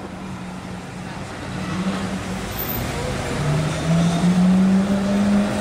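Lamborghini Aventador V12 engine running at low revs as the car moves off slowly. Its note rises gradually and grows louder over the last couple of seconds.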